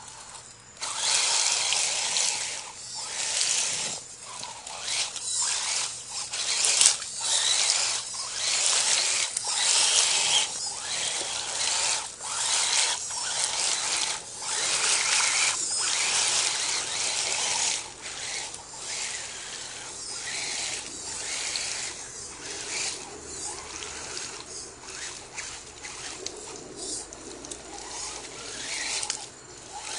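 Electric RC monster truck (HPI Wheely King) churning through mud: a high-pitched motor and gear whine in repeated throttle surges, with wet mud and water slopping under the tires. It turns fainter and steadier after about 18 seconds.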